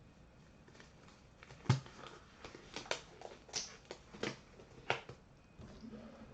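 A run of irregular clicks and knocks, about a dozen over three seconds, the first one the loudest.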